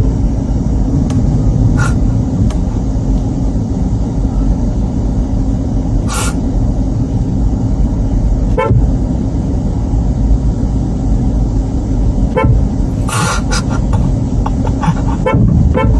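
Car horn honking in several short toots over a steady low engine rumble, to get a cat lying in the road to move.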